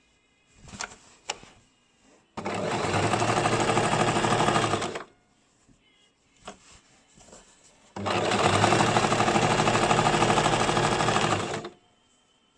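Basic electric sewing machine stitching in two runs of a few seconds each, a fast even clatter of the needle, with a few light clicks in the pause between them.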